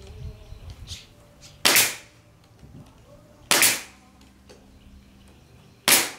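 Pneumatic stapler firing staples into plywood: three sharp shots about two seconds apart, each with a short tail.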